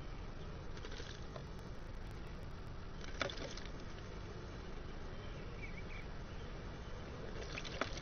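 A bluebird bathing in a shallow stone bird bath, splashing water with its wings in short bursts: about a second in, at about three seconds, and again near the end.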